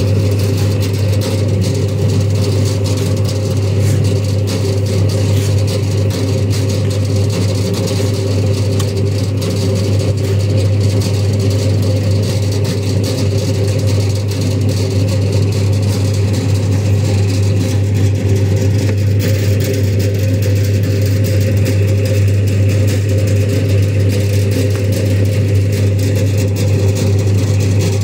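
Steady, unbroken low engine drone of a running motor vehicle, with no change in pitch.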